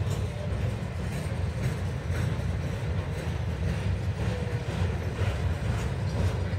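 Rail train of flatcars loaded with long lengths of rail rolling past: a steady low rumble of steel wheels on track, with faint clicks every half second or so.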